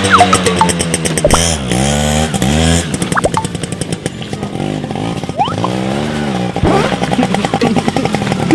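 Small underbone motorcycle engine revved up and let fall several times while the rider spins the rear wheel on dirt in a burnout.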